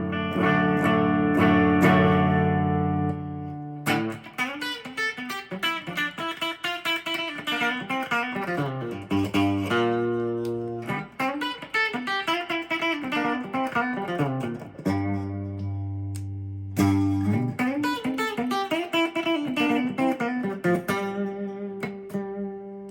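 1981 Ibanez Artist AR300 electric guitar being played: chords left to ring, with quick runs of single notes between them.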